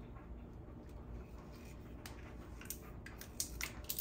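Screw cap of a glass bottle being twisted and worked open by hand: a few faint sharp clicks and ticks in the second half, over a low steady hum.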